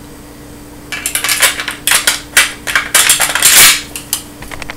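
Metal clicks, clacks and scrapes of a Saiga 12 shotgun's bolt carrier being slid back into the receiver and fitted by hand. They start about a second in, in a quick run of sharp clicks with a longer scrape a little before the end.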